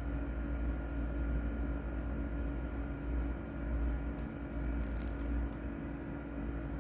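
Steady low mechanical hum throughout, with a cluster of short sharp clicks about four seconds in as the kittens eat from a metal bowl.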